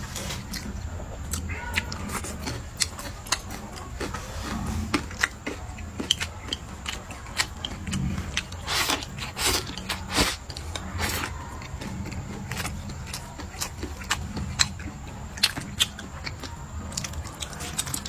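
A person eating close to the microphone: chewing and biting food, with frequent irregular sharp clicks. A steady low hum runs underneath.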